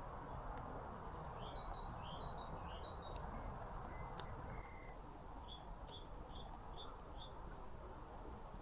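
A small songbird singing two runs of a quickly repeated high two-note phrase, the second run longer, about seven repeats. A steady rushing background noise sits beneath the song.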